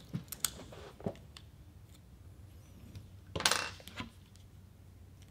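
A few small metallic clicks as a hex driver works a screw in the FX Impact air rifle's trigger housing. About three and a half seconds in comes a louder scrape and knock as the rifle's action is slid and turned over on the table.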